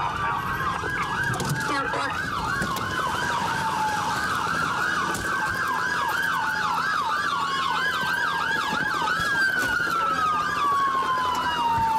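Police car sirens: a fast yelp sweeping up and down several times a second, overlapped by a slower wail that falls in pitch, over road noise.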